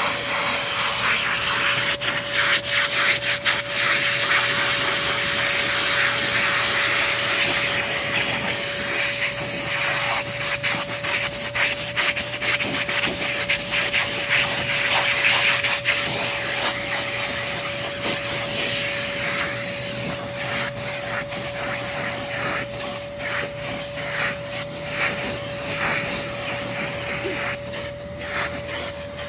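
High-velocity dog blower running with a steady motor whine and a loud rush of air. The rush rises and falls as the hose nozzle is worked through a husky's thick coat to blow out the shedding undercoat. The air noise eases somewhat in the last third.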